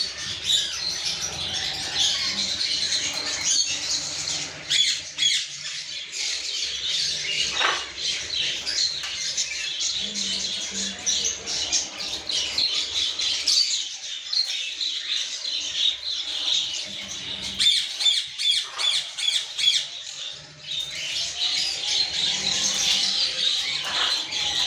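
Parrots squawking and chattering, with many short calls overlapping.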